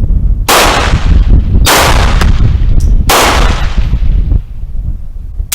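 Three pistol shots from a Zastava M70 firing handloaded .32 ACP rounds, spaced a little over a second apart, each with a decaying tail, over a steady low rumble.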